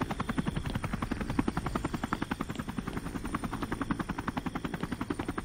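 Helicopter on the ground with its rotor turning, the blades beating in a fast, steady, regular chop that eases slightly near the end.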